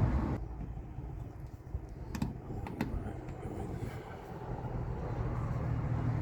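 Low steady rumble with a few sharp light clicks or knocks, a cluster about two seconds in and another near three seconds.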